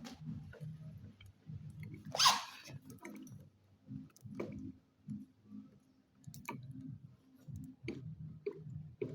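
Plastic ink bottles and ink-tank caps being handled while filling a Canon PIXMA G4411 ink-tank printer: scattered small clicks and taps, with a short, louder burst of noise about two seconds in.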